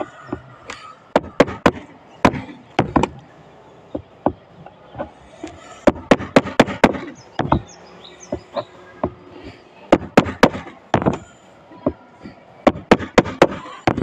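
A hammer and a screwdriver tapping and knocking against a red-painted surface: sharp, irregular strokes, some in quick runs of three or four, a few with a short ringing after them.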